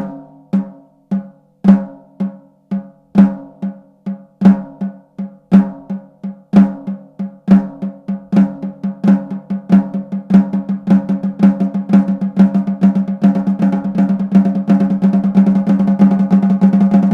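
Snare drum struck with sticks in Swiss Army triplets (flam, tap, tap, repeated), starting slow and steadily speeding up until the strokes run together into a fast roll.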